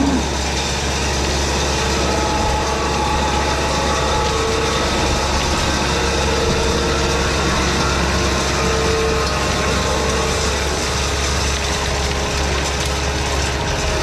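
Caterpillar 289D compact track loader's diesel engine running steadily under load while its auxiliary hydraulics spin a power box rake's rotor through the soil. A steady low drone, with faint higher whining tones that come and go.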